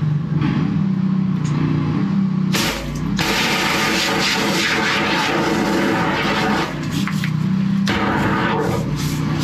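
Drain jetting unit's engine running steadily under load, with a loud rush of water from the high-pressure jetting hose starting about two and a half seconds in and cutting off near eight seconds.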